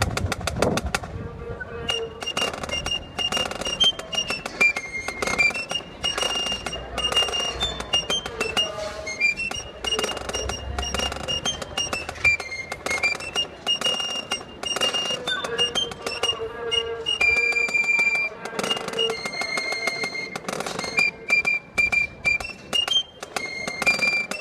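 Marching wind band playing, with a high, bright melody line of held notes stepping up and down over steady, rhythmic percussion strokes.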